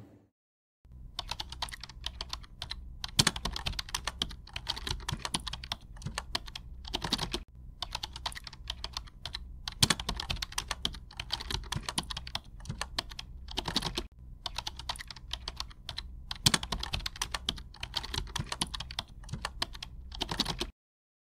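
Computer keyboard typing: quick, irregular runs of key clicks with short pauses, starting about a second in and stopping just before the end.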